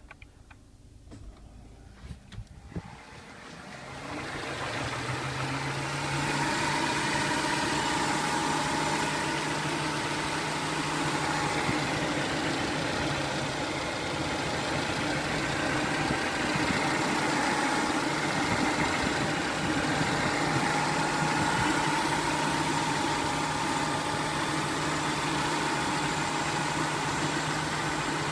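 Peugeot 307's 1.4 16V four-cylinder petrol engine idling steadily. After a few faint clicks it swells over a couple of seconds, about four seconds in, then holds an even idle.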